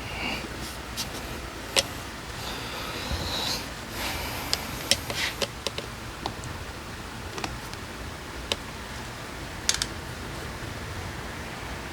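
Scattered sharp clicks and light knocks, with short bits of rustling, from hand tools and small parts being handled.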